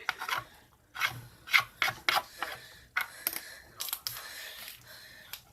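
A series of about a dozen short, irregular rubbing and scraping strokes.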